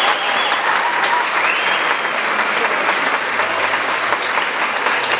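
Audience applauding steadily, a dense, even clapping that follows the end of a folk fiddle band's tune.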